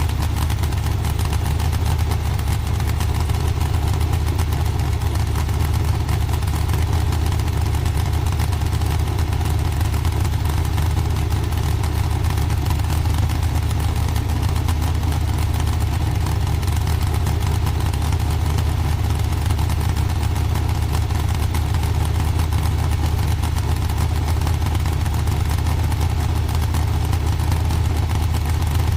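Dragster engine idling steadily with a loud, deep, unchanging rumble.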